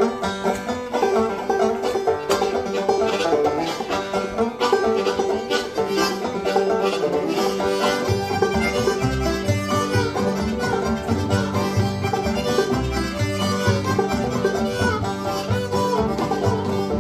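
Old-time string-band music led by a picked banjo, with guitar accompaniment; deeper bass notes join about halfway through.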